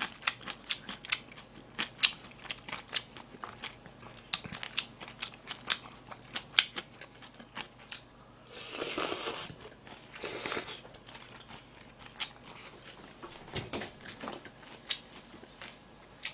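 Close-up eating sounds of a person chewing: many small wet mouth clicks. About nine and ten seconds in come two short slurps of buckwheat noodles.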